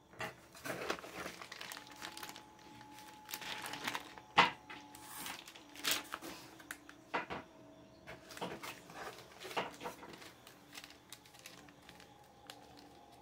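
Plastic packaging crinkling and rustling as it is handled and opened, in irregular spurts with a sharp crackle about four seconds in.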